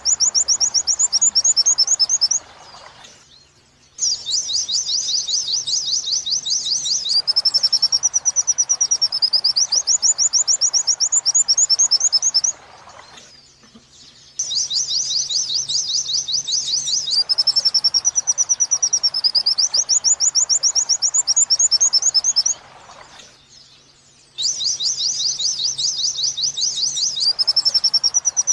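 White-eye (pleci) song in the 'wit-wit sambung kuntilanak' style: long, fast trills of high repeated notes whose pitch wavers up and down. They are broken by pauses of about two seconds, roughly every ten seconds, about two seconds in, at about twelve seconds and at about twenty-two seconds.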